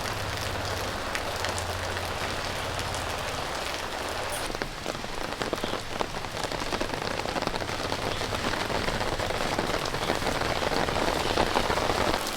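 Steady rain falling on hard surfaces, with many small drops and drips, growing a little louder in the second half. A low hum sits under it for the first few seconds, then fades.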